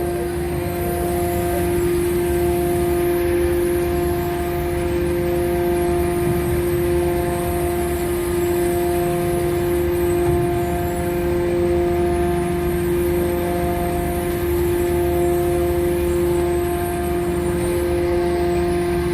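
Ferry's shipboard machinery running steadily: an even low drone with a strong constant hum and a higher tone that drops in and out.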